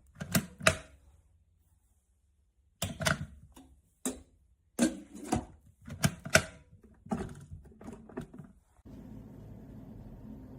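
A string of sharp clicks and hard knocks in quick clusters, typical of an electric kettle being handled. About nine seconds in, a steady low hum begins.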